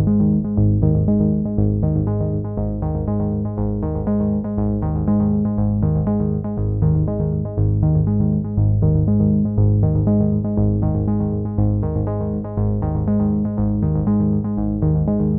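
Instrumental electronic background music: repeating synthesizer keyboard notes over a steady beat.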